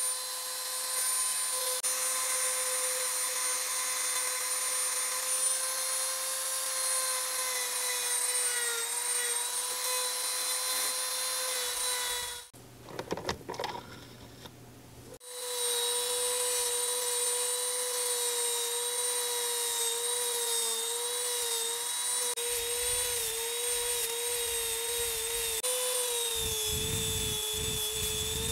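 Handheld high-speed rotary tool running with a steady whine while it grinds and brushes a bare die-cast metal model body. About halfway through it stops for roughly three seconds, with a few small handling clicks while the bit is swapped for a brush wheel, then starts again. Near the end, the spinning brush wheel on the metal adds a rough rubbing under the whine.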